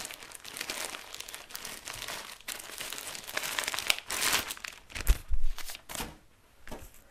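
Clear plastic bag crinkling and rustling as it is opened and a T-shirt is pulled out of it, with irregular crackles that stop about six seconds in. A couple of dull thumps a little after five seconds are the loudest moment.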